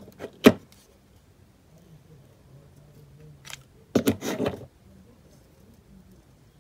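Two sharp clicks of hard plastic, then a short burst of clicking and clattering about four seconds in: a plastic headband and craft tools being handled while hot glue is applied to the ribbon.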